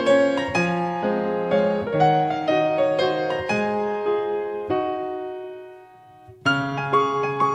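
Background piano music played as a melody with chords. The notes die away into a short lull about six seconds in, then the playing starts again.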